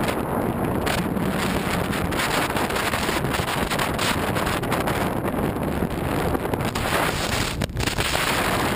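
Steady wind buffeting on the microphone of a camera mounted outside a fast-moving Jeep Wrangler JK diesel, with its engine and tyres on the sand track running underneath. The noise dips briefly a little before the end.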